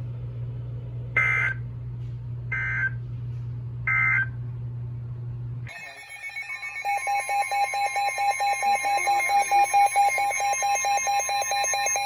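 Emergency Alert System end-of-message data bursts: three short electronic screeches about a second and a half apart. About six seconds in, a loud continuous electronic alert tone with a fast pulsing pattern starts and keeps going, ahead of the next warning.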